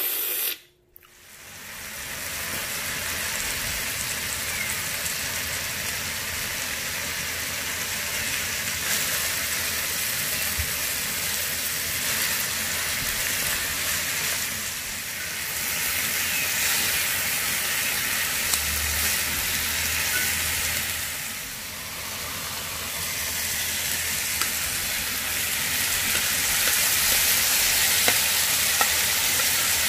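Pork belly, kimchi and green onions sizzling and frying on a hot Arisu mini camping griddle over a portable gas burner. Metal tongs stir and scrape the food now and then. The sizzle starts about a second in and grows a little louder near the end.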